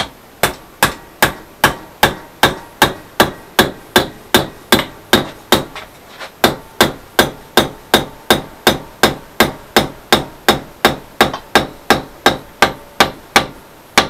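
A hand hammer striking a steel rod clamped in a bench vise, bending it over the vise jaw. The sharp metal blows come in an even, quick series of about three a second, with a short pause about halfway through.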